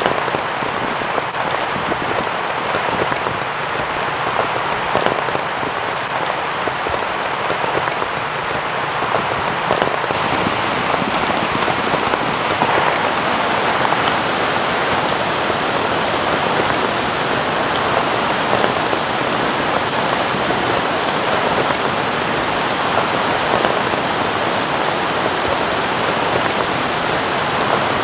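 Heavy rain falling steadily, a dense, even patter that grows a little louder about ten seconds in.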